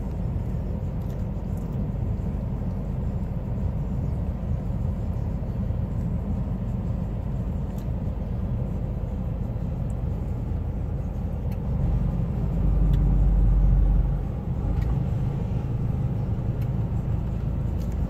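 Steady low vehicle rumble that swells louder for a couple of seconds about twelve and a half seconds in, then settles back.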